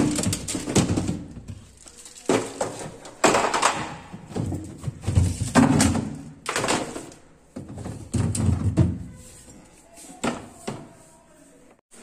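Plastic fridge door racks and crisper drawer being pulled out and handled, a run of irregular knocks and scrapes of plastic on plastic.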